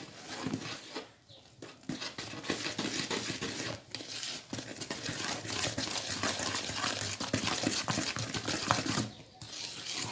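Wooden spoon stirring thick cake batter in a bowl: a busy run of scraping strokes against the bowl, with a short pause about a second in.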